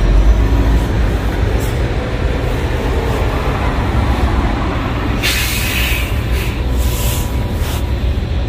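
Steady low rumble with a brief hissing burst about five seconds in.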